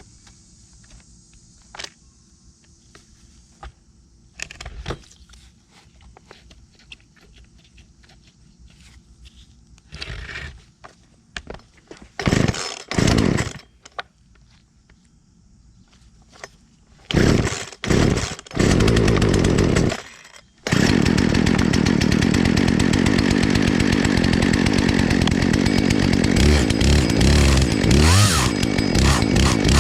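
Chainsaw starting: after some quiet handling clicks, the engine fires in a few short bursts, then catches about two-thirds of the way through and runs steadily, revving near the end.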